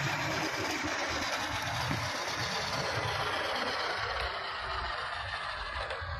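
WPL D12 1/10-scale RC pickup truck's brushed electric motor and gear drivetrain running steadily as it drives over paving.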